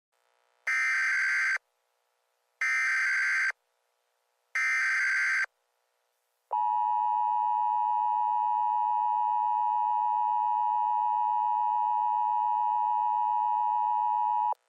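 Emergency Alert System tones: three short bursts of the SAME digital data header, about a second each, then the long steady EAS attention tone held for about eight seconds, announcing an alert.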